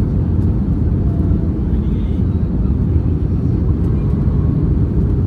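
Steady cabin rumble inside an Airbus A320-200 during its descent on approach, engines and airflow heard from a window seat over the wing with the flaps extended.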